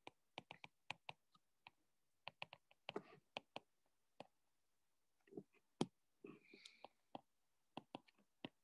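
Faint stylus clicking and tapping on a tablet screen during handwriting: an irregular run of short, light clicks, with a few longer, softer stretches in between.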